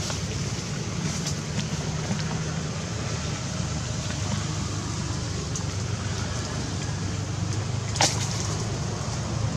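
Steady low outdoor rumble with a few brief sharp clicks, the loudest about eight seconds in.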